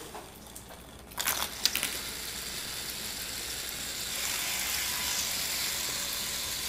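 A few light glassware clinks about a second in, then a steady hiss as liquid is poured from a glass beaker over a small heat-engine demonstration block.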